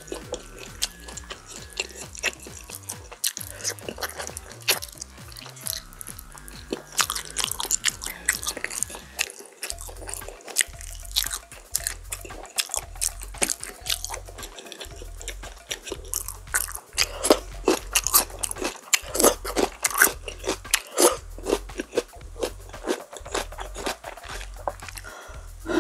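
Close-miked eating of crispy oven-roasted chili-pepper chicken: repeated sharp crunches of the crisp coating and meat being bitten and chewed, many crunches all the way through.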